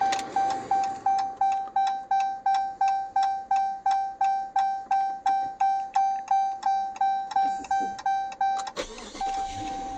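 2015 Dodge Charger's dashboard warning chime, a pitched ding repeating about three times a second. Just before the end it stops with a click and gives way to a single held tone.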